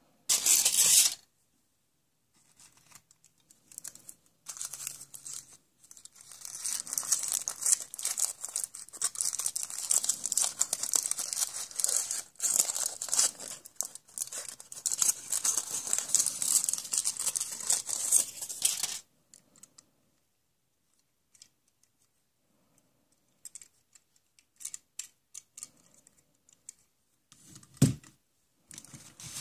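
Coloured foil wrapping crinkling and tearing as it is peeled off a small toy car. There is a short burst of crinkling right at the start and a long stretch of continuous crackling from about six seconds in to nineteen. Scattered crinkles follow, then a thump near the end.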